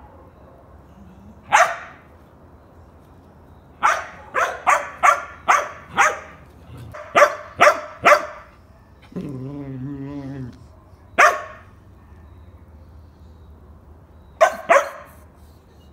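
A dog barking: sharp barks, some single and some in quick runs of three to six, about a dozen in all. Near the middle there is a low, wavering drawn-out sound lasting over a second.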